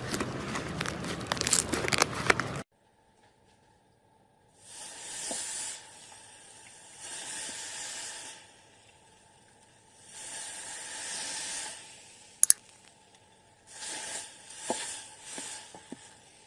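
Slime being squished and mixed: dense crackling and popping for the first two and a half seconds, then a sudden cut. Several shorter, softer stretches of sticky hissing and squishing follow, with one sharp click about twelve seconds in.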